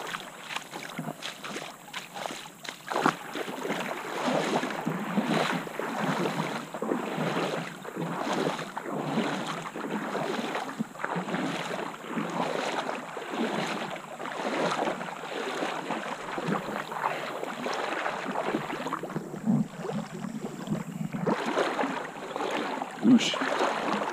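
Water sloshing and splashing around a person's legs as they wade through a shallow creek, coming in uneven surges about once a second with each stride.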